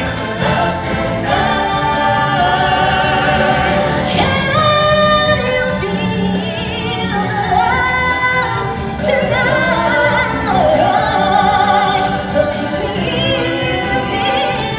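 Stage-show music with singers and a choir holding sung notes over the band, with no clear words.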